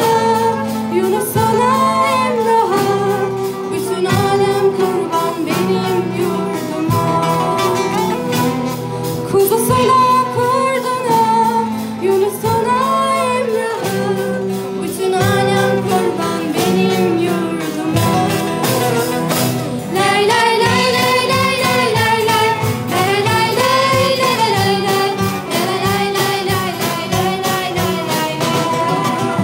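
Live band performing a song: female voices singing into microphones over strummed acoustic guitars, with a steady beat throughout.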